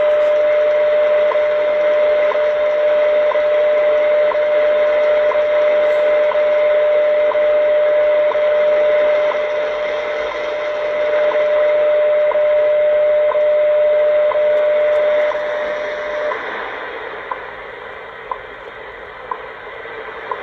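WWV time signal station on 25 MHz heard through a shortwave receiver's speaker: a steady 600 Hz tone with a short tick every second, over shortwave hiss. About 16 seconds in the tone stops, leaving the once-a-second ticks and static.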